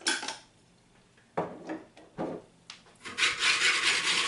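A few short shakes of a spice jar of dill over a small bowl, then a utensil scraping briskly round the bowl as an oil and spice marinade is stirred together, steady from about three seconds in.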